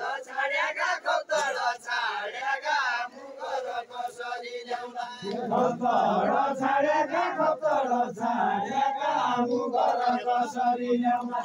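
A group of voices singing a Deuda folk song together in a chant-like chorus, many voices overlapping.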